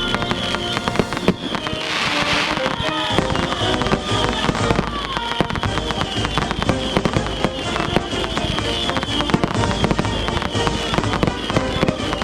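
Fireworks going off in a rapid run of pops and bangs, with a hissing burst about two seconds in.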